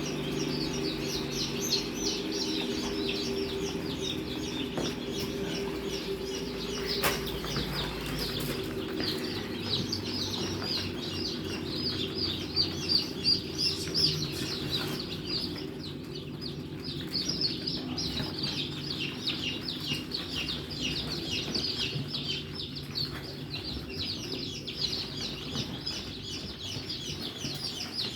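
Many newly hatched Improved Kienyeji chicks peeping continuously in short, quick chirps, with a low steady hum under them that fades after about ten seconds.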